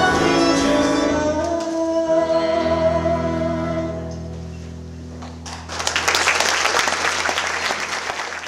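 Voices and instruments hold a final sustained chord that fades away, then an audience breaks into applause about five and a half seconds in.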